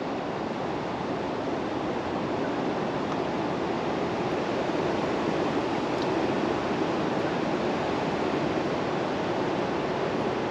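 Steady rushing noise of wind and choppy lake water.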